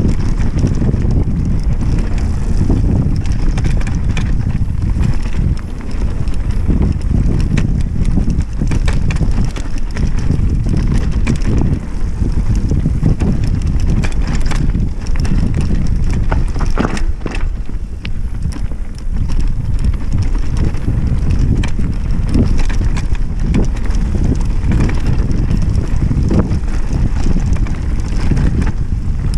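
Mountain bike descending a dirt trail, heard from a camera on the bike: steady wind buffeting the microphone over the rumble of tyres on dirt, with frequent clicks and rattles as the bike goes over bumps.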